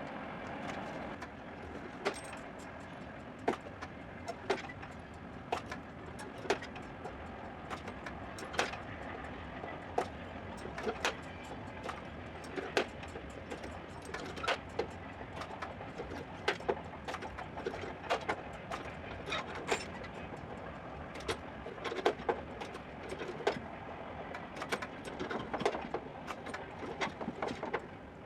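Light, irregular hammer taps on a car's sheet-metal trunk lid, about one or two a second, over a steady background hum, as a dent is worked out of the panel.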